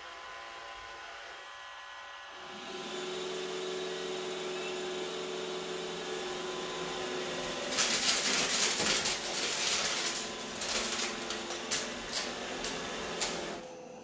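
Roomba robot vacuum's motor starting up with a steady whir, then a run of rapid clicks and rattles as it sucks up hard little Imperial Reds candies from a hardwood floor. The rattling stops about a second before the end.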